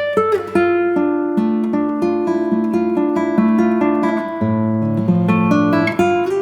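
Acoustic guitar music, with plucked notes and chords following one another at a steady pace.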